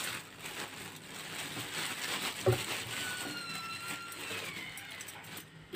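Clear plastic bag crinkling and rustling as it is handled and opened around the mixer's metal beaters and a cardboard box, with one dull knock about halfway through and a faint thin squeak just after.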